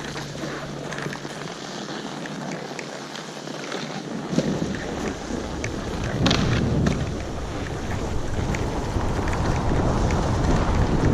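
Skis sliding and scraping over snow, with wind rushing on the microphone. The wind rumble grows louder from about four seconds in as the run picks up speed, and there are a couple of sharp knocks about four and six seconds in.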